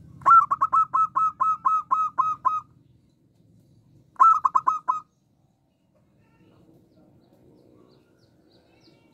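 Zebra dove (perkutut) calling: a quick run of about ten short, clipped notes, each sliding slightly down, then after a pause a shorter run of about five.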